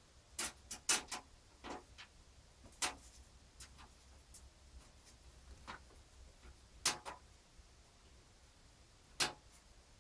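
Irregular sharp clicks and taps of small metal hardware, screwdriver and screws, being worked while a motherboard is fitted into a PC case: a quick cluster about half a second in, then single clicks every second or two.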